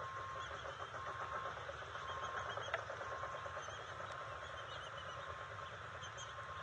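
Outdoor ambience: a steady low rumble with faint, short songbird chirps over it, and one sharp click a little under three seconds in.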